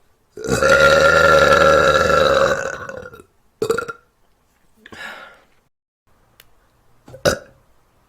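A person letting out a long, loud burp that holds a steady pitch for about three seconds. A short second burp follows, then two fainter, briefer sounds near the end.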